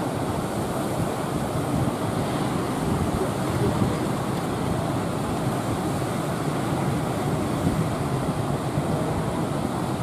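Big ocean waves breaking on the beach: a steady, continuous rush of surf.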